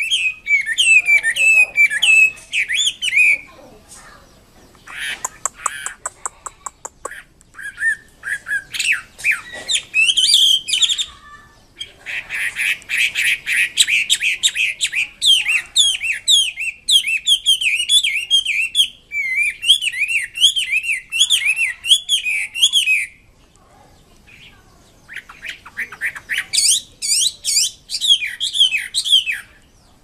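Chinese hwamei singing a loud, varied song of whistled phrases, rapid repeated notes and fast trills. It comes in several bouts with short pauses between them and one long bout in the middle.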